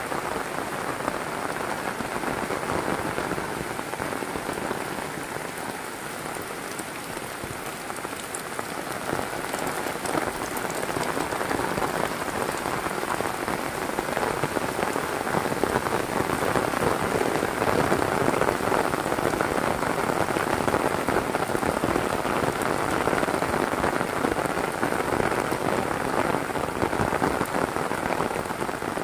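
Heavy rain pouring down in a dense, steady hiss. It eases a little and then grows heavier from about ten seconds in.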